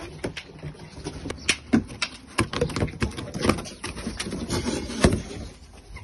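A large cardboard bicycle shipping box being opened and handled: irregular taps, scrapes and rustles of cardboard and packaging, with a louder knock about five seconds in.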